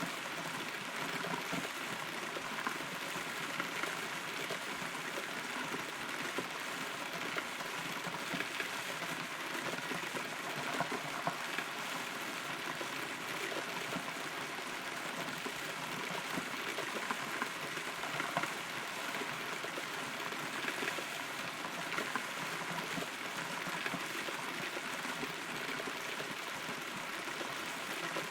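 Steady rain falling, heard from inside a hollow rotten tree, with a dense hiss and many small drop ticks.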